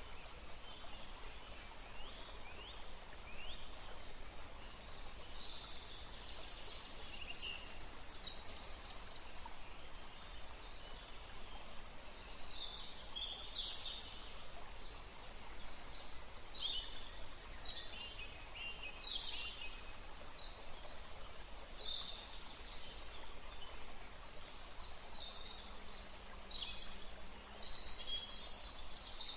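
Songbirds chirping and trilling, many short calls overlapping, over a steady background hiss.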